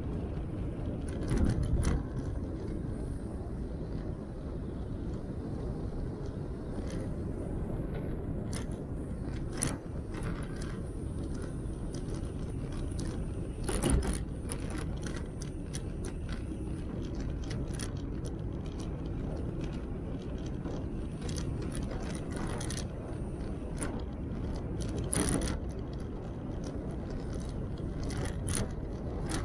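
Velomobile rolling over a rough, bumpy path: a steady low rumble from the tyres and body shell, with frequent small rattles and clicks and a few louder knocks about 1.5, 14 and 25 seconds in.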